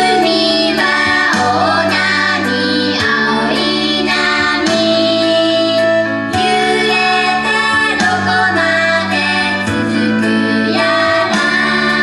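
Girls singing a pop song into handheld microphones over instrumental accompaniment with keyboard.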